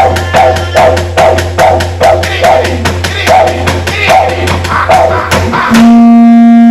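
Didgeridoo drone with a rhythmic pulsing pattern over rapid, steady clapstick beats, accompanying an Aboriginal dance. About five and a half seconds in, the drone and beats stop and a single loud held note closes the piece.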